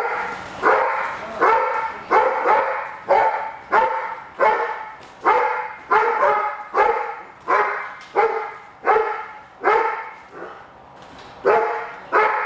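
A Doberman barking over and over at another dog, one loud bark about every two-thirds of a second, with a pause of about a second near the end before it starts again. This is the dog-directed aggressive, reactive barking being assessed.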